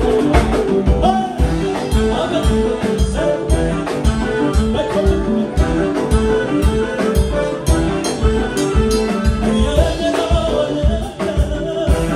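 Ethiopian pop song: a steady beat with a bass pulse under sustained instrumental chords, and a male voice singing in places.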